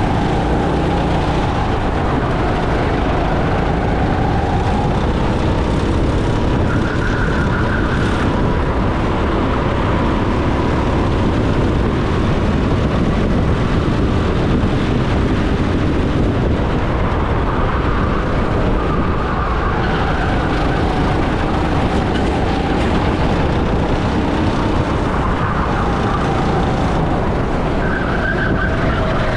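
Go-kart engine running hard under racing, its pitch rising and falling as the kart accelerates out of corners and brakes into them, over a loud rushing noise of wind and tyres.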